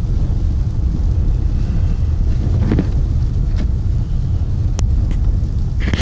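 Steady low rumble of road and engine noise inside a front-wheel-drive car driving slowly on a plowed, snow-covered road, with a couple of faint clicks about five seconds in.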